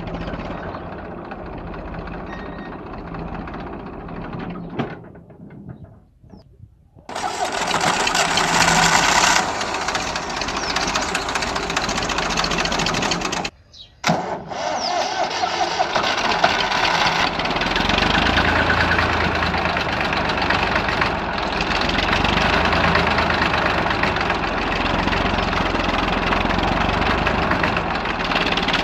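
Old tractor's diesel engine running hard under load, pulling a heavily loaded trailer through soft sand and blowing black smoke. The sound breaks off briefly twice, then carries on loud and steady.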